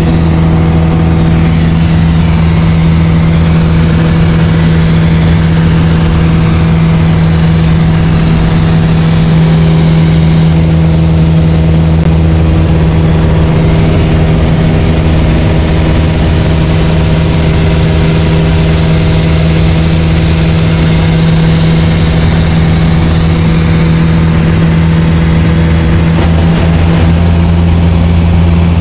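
Single-engine light aircraft's piston engine and propeller running steadily, heard from inside the cabin as a loud, even drone with a deep hum.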